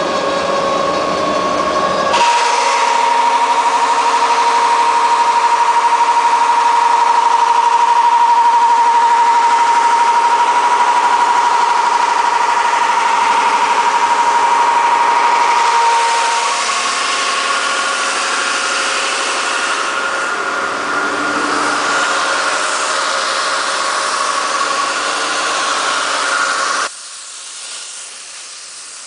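Griggio S 1300/2 relief-brushing machine running, its rotating metal brush and Tynex plastic brush scrubbing wood to give it an aged, textured surface. A steady whine sounds through the first half, the noise changes about halfway, and it drops off sharply near the end.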